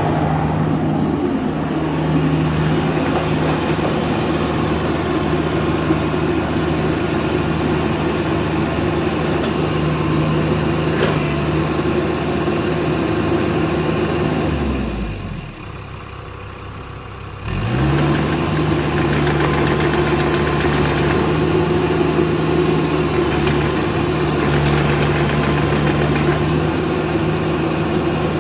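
Caterpillar excavator's diesel engine running at a steady speed. About halfway through, the engine speed sinks sharply and the sound gets quieter, then after about three seconds it comes back up quickly to the same steady speed.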